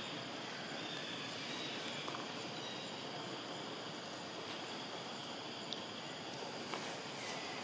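Steady outdoor background hiss, with a few faint clicks in the second half.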